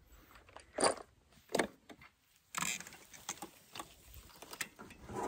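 Handling noises: two soft knocks in the first two seconds, then a scatter of small clicks and rustles of ammunition and shooting gear being handled.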